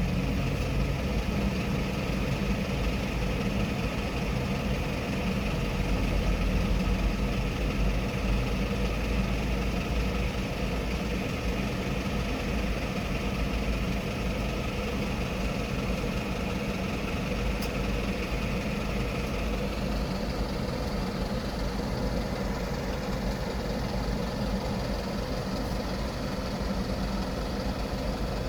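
City street traffic: a steady rumble of vehicle engines, with an engine idling close by.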